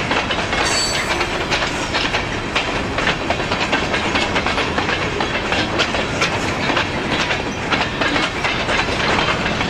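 Freight cars (covered hoppers and open gondolas) rolling past, their steel wheels clicking steadily over the rail joints over a continuous rolling noise.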